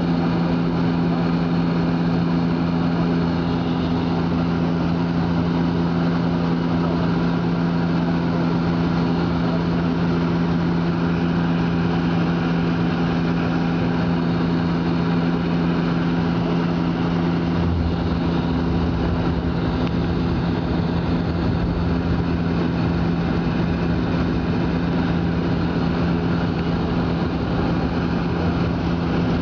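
Airliner engine drone heard from inside the cabin during the landing approach: a steady hum with two held tones over a noisy rush. About eighteen seconds in, a deeper rumble comes up underneath.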